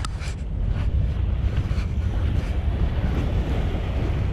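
Wind buffeting the microphone as a steady low rumble, with small sea waves washing against a rock revetment.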